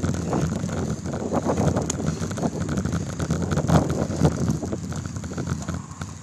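Trek X-Caliber mountain bike riding fast over a dirt single-track: tyre rumble with rattling knocks from the bike and its phone mount over the bumps, and wind on the microphone. It quietens near the end as the bike slows.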